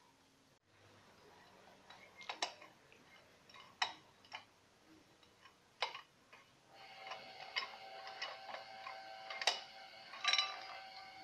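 Scattered sharp plastic clicks and knocks as an ignition coil's connector is handled and the coil is pulled up out of its spark plug well. A faint steady whine with several tones comes in about seven seconds in.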